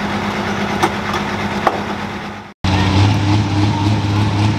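John Deere 4255 pulling tractor's diesel engine idling, with two short clicks, fading out about two and a half seconds in. After a brief cut to silence, a modified pro stock pulling tractor's diesel engine idles with a steady, deeper drone.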